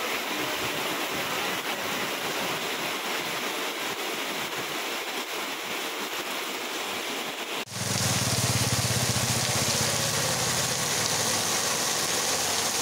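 Heavy rain pouring onto a street, with water running along it, as a steady hiss. About eight seconds in, the sound cuts abruptly to a slightly louder rain hiss with a low hum underneath.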